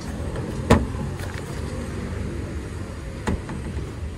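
Driver's door of a Honda HR-V being opened: a sharp latch click about a second in and a second, softer click near the end as the door swings open, over a steady low rumble.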